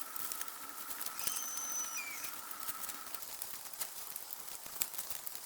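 Faint scattered taps and rustling from bamboo panels being handled and tied in place. A thin steady tone is heard through the first half, with a brief high chirp partway through.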